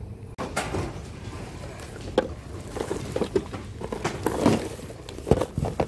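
Hands rummaging through a bin of mixed secondhand goods: plastic bags, tissue paper and mesh ribbon rustling and crinkling, with small items knocking together, in irregular bursts that start abruptly about half a second in.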